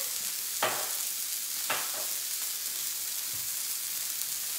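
Smashed beef burger patties sizzling steadily on a hot griddle, with two short clicks in the first two seconds.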